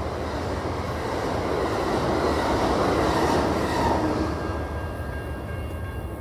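Rumble and wheel noise of the last Amtrak Superliner passenger cars rolling past on the rails, fading after about four seconds as the train clears. As it fades, the crossing's GS Type 1 electronic bell can be heard ringing with steady tones.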